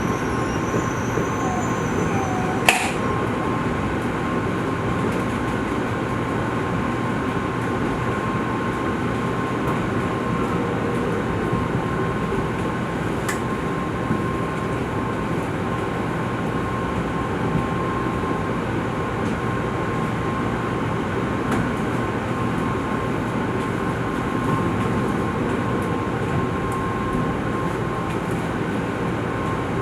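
Tokaido Shinkansen train rolling slowly over a level crossing: a steady rumble of wheels with a steady high tone throughout, and a single sharp click about three seconds in.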